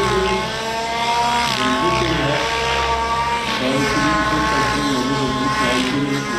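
Gas-powered Miniature Aircraft Whiplash RC helicopter in aerobatic flight: its two-stroke petrol engine and rotors run with a steady, buzzing note whose pitch dips and recovers briefly a few times as the model is flung through its manoeuvres.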